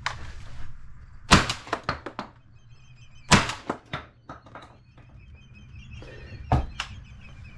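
A few sharp knocks and clunks with smaller clicks after them, the loudest about a second in, as a shotgun is handled.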